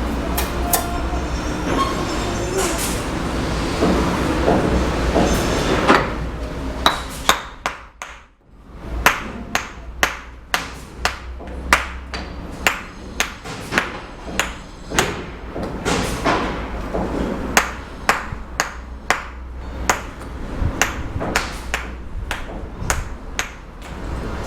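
Sharp, ringing taps of a bricklayer's steel tool striking cement bricks, about one or two a second, starting about six seconds in. Before them there is a steady low rumble.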